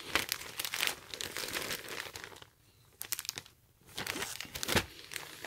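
Clear plastic zip bag crinkling as it is handled, in irregular crackles with two brief pauses midway.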